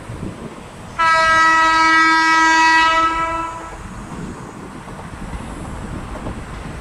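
Horn of an approaching diesel train, sounded once as a single steady note about two and a half seconds long, starting about a second in. After it stops, the low running rumble of the train grows as it comes closer.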